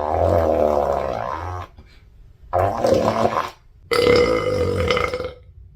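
A girl belching: a long burp trails off about one and a half seconds in, followed by two more drawn-out burps, each lasting about a second, the last held on a steady pitch.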